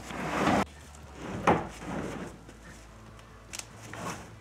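Scraping and knocking of an empty plastic IBC tote being shifted about by hand: a short scrape at the start, a sharp knock about a second and a half in, then a few lighter clunks near the end.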